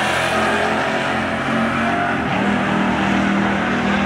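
Two pickup trucks' engines accelerating hard side by side down a drag strip in a race.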